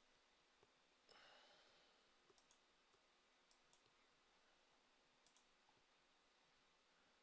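Near silence with faint computer mouse clicks, three times in quick pairs like double-clicks, and a brief soft hiss about a second in.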